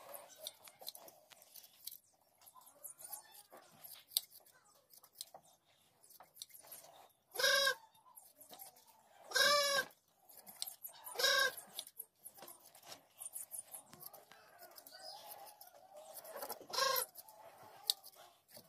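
Hand shears snipping through a sheep's fleece in faint, quick clicks. Four short, loud calls from a farm animal cut across them: three about two seconds apart in the middle and one near the end.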